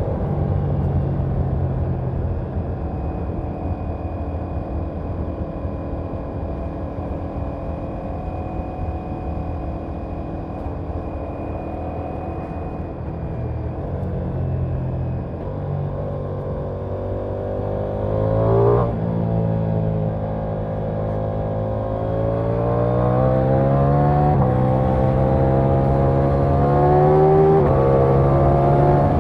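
2023 Ducati Diavel V4's V4 engine and exhaust under way: a steady cruising note for the first half, then the pitch climbs as the bike accelerates, drops sharply at a gear change a little past halfway, and climbs again, getting louder near the end.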